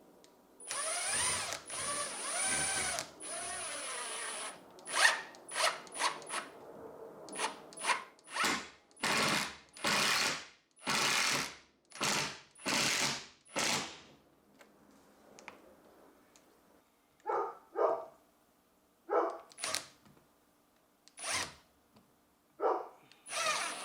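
Handheld power tool running in repeated short bursts, after a first longer run of a few seconds whose pitch rises and falls as its speed changes.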